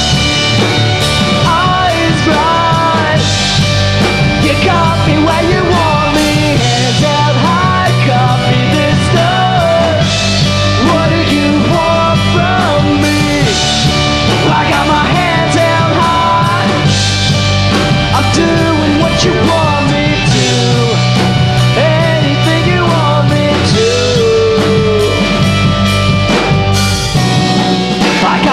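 A live pop-rock band playing through an instrumental passage with no lyrics: electric guitars, bass and a drum kit keeping a steady beat, with a bending, wavering lead melody over the top.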